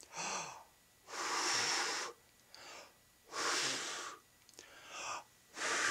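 A man blowing out hard three times, each blow about a second long, with short breaths drawn in between.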